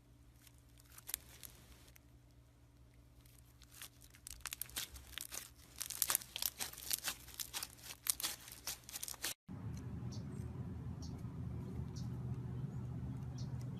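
Slime being squeezed and stretched by hand, crackling and popping: a few clicks at first, then dense crackling from about four seconds in. It cuts off abruptly about nine seconds in, and a steady low hum with a few faint clicks follows.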